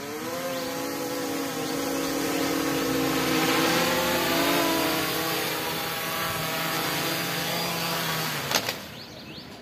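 Quadcopter's four 930 kV brushless motors and 10-inch propellers whining as it comes in to land, pitch shifting with the throttle and louder as it gets closer. Near the end a sharp knock, then the motors stop.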